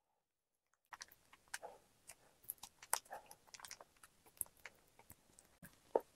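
A small plastic sauce sachet being torn open and squeezed, giving a run of sharp crinkles, crackles and clicks that starts about a second in.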